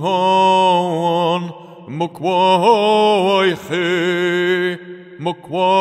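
A man chanting long, drawn-out syllables in no recognisable language, a mantra-like vocal for sound healing: a held note, a short break, then a phrase that bends in pitch, with a new held note starting near the end.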